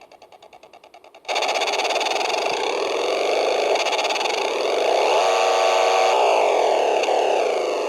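Electronic engine sound effect from a vintage Nikko RC boat radio controller's speaker. It starts as faint rapid chugging pulses, jumps suddenly loud to a steady buzzing drone about a second in, rises and falls in pitch midway, then eases back toward chugging near the end. The sound effects were malfunctioning, and the sudden drop and return in level fits a sound circuit cutting in and out.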